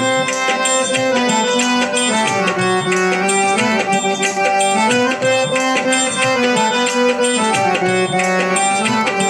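Instrumental interlude of Indian devotional bhajan music: held melody notes over a steady percussion rhythm, with no singing.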